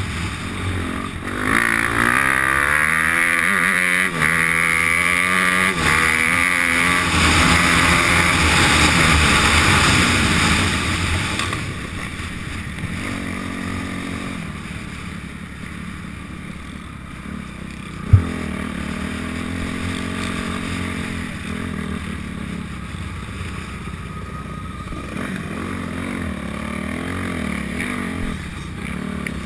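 Off-road motorcycle engine ridden hard, its revs climbing and falling through the gears. After about eleven seconds it drops to low revs as the bike slows. A single sharp knock comes about eighteen seconds in.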